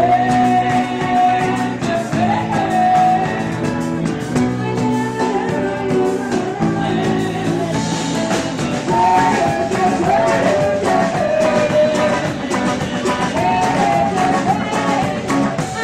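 Live rock band playing a song: a singer's voice over guitar, bass and a drum kit with frequent cymbal strokes.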